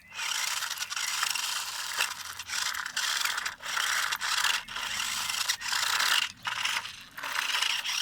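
Small toy car's wheels scraping and rattling across a hard surface, pushed back and forth in repeated runs of about a second each with short breaks between.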